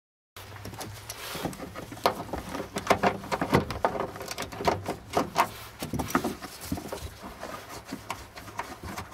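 Hands handling a car trunk's carpet liner and the plastic parts behind it: irregular rustling, scraping and sharp clicks, over a faint steady low hum.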